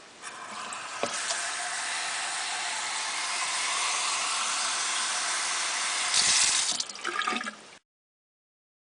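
Water pouring in a steady stream for about seven seconds, with a louder gush near the end; then the sound cuts off suddenly.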